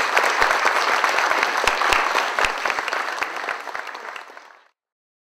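Audience applauding: many hands clapping in a dense, steady patter that tails off slightly and then cuts off suddenly about four and a half seconds in.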